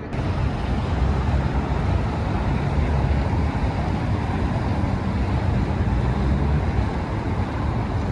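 Steady road traffic noise, a dense, even rumble without clear separate events, starting suddenly where the music cuts off.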